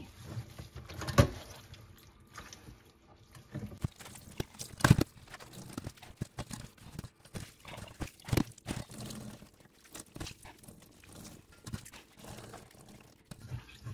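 Cheese curd wrapped in a cloth being pressed and kneaded by hand inside a stainless-steel colander in a sink, squeezing out the whey: soft wet squelching and rustling with irregular knocks, the clearest about a second, five and eight seconds in.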